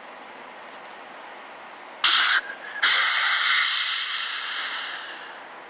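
Snort-wheeze deer call: a short, loud breathy burst about two seconds in, then a longer hiss that fades away over about three seconds.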